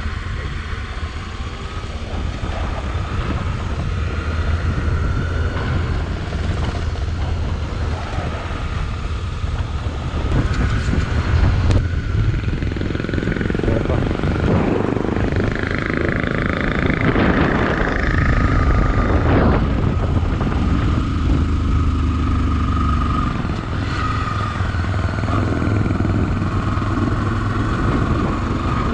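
Motorcycle engine running while riding, a steady low drone that swells a little now and then.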